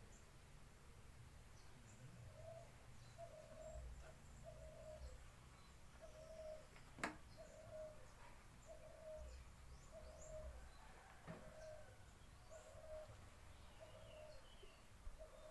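Faint bird calls: one bird repeating a short low note evenly, about one every three-quarters of a second, with faint high chirps from small birds. A single sharp click about halfway through.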